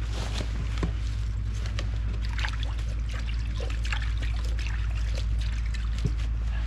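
Plastic bait tubs and crumbly groundbait being handled, with scattered rustles, scrapes and light clicks over a steady low rumble.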